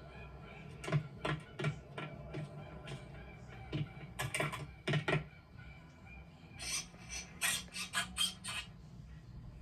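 An irregular series of short clicks and knocks, then a quick run of sharper, brighter clicks a few seconds later.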